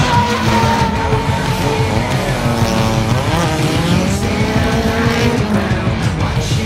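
Drift car's engine revving hard at high rpm while its tyres squeal through a slide; the engine pitch holds, then dips and climbs again around the middle.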